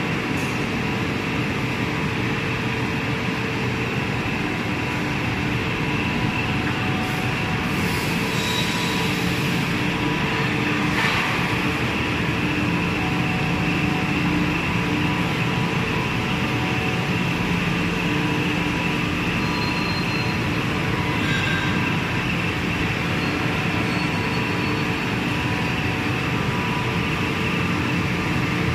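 Aluminium-profile handling conveyor and extrusion-line machinery running: a steady mechanical drone with several held tones, and a few brief higher-pitched noises about eight and eleven seconds in.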